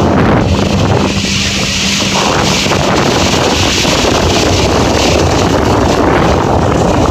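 Motorboat engine running under way while towing a tube rider, with strong wind rushing over the microphone. The steady low engine hum is buried under the wind noise from about three seconds in as the boat picks up speed.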